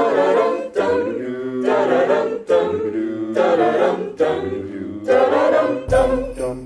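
A cappella vocal group singing a Christmas medley in short repeated phrases, several voices in harmony with no instruments. Near the end a deep bass note and jingling bells come in.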